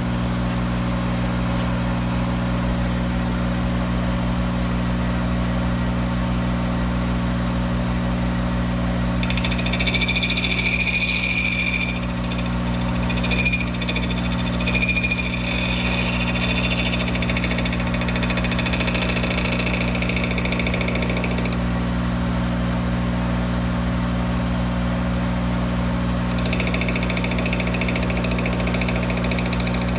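Monarch 10EE toolroom lathe running in reverse with a steady hum while a small boring bar cuts a burr off a gear. About ten seconds in the cut sets up a high-pitched squeal that comes and goes, stops around twenty seconds, and starts again near the end.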